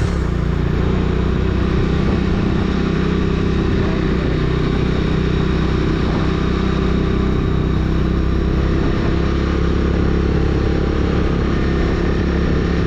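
Bajaj Dominar motorcycle engine running steadily at an even pitch, with a steady rushing noise over it.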